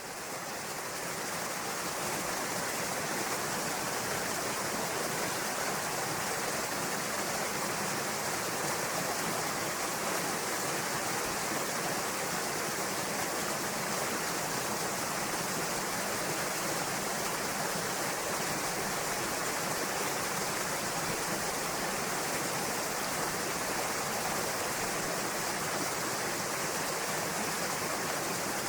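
Waterfall cascading over rock into a pool, a steady full rushing of water that fades in over the first couple of seconds and then holds even.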